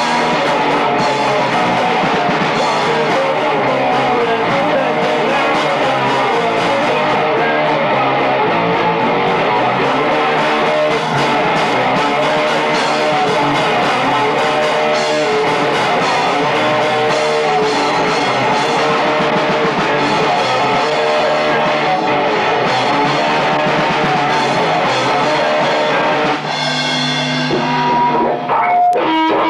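Punk rock band playing live: distorted electric guitars and a drum kit. Near the end the drums drop out, leaving a few held guitar notes ringing.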